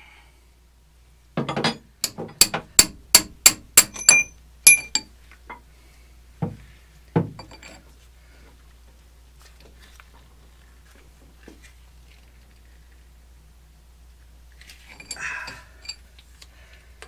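Hammer blows on metal: a quick run of about ten ringing strikes at roughly three a second, then two duller knocks a couple of seconds later.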